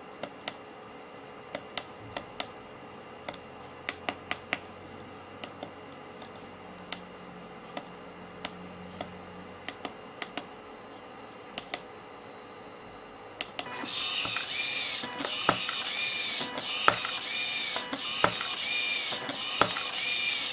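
Small tactile push buttons on the wire cutter's control board clicking, one press at a time. About fourteen seconds in, the machine starts: its stepper-motor wire feeder whines in short runs that rise and fall in pitch, and a sharp snap comes roughly every second and a half as the cutter clips off each length of wire.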